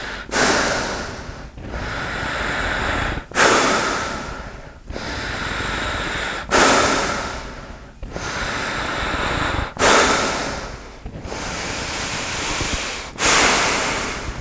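A man breathing slowly and deeply through a fabric filtration mask with two air valves: five loud breaths, about three seconds apart, each starting suddenly, with a quieter, longer breath between them.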